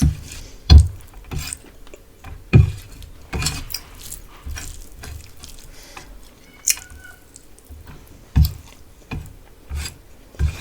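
Close-up eating sounds: chewing and wet mouth clicks on rice and fish curry, irregular sharp smacks with soft low thumps, and the odd faint clink of dishes.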